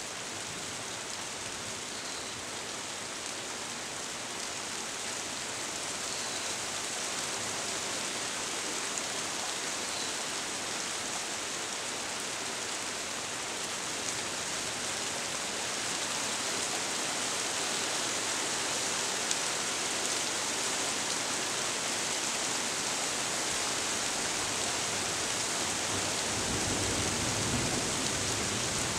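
Steady rain falling through tree leaves, slowly growing heavier. Near the end a low rumble joins it.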